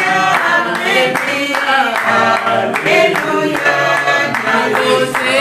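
Several voices, women and men, singing a worship song together while clapping their hands in time.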